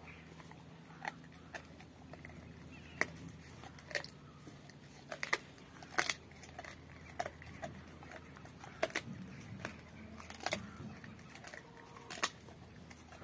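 Rottweiler chewing a raw pork bone: irregular sharp crunches and cracks of teeth on bone, roughly one a second.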